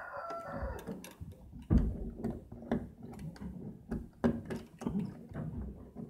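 Padlock and metal door hasp rattling and clicking as a hand works them, with irregular knocks of the wooden door, the loudest about two seconds in. A fowl's call carries over into the first second.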